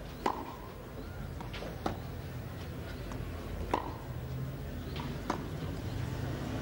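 Tennis ball struck by racquets in a baseline rally: four sharp hits about one and a half to two seconds apart, over a steady low hum.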